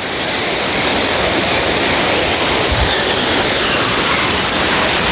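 Waterfall rushing: a steady, loud wash of falling water with no break.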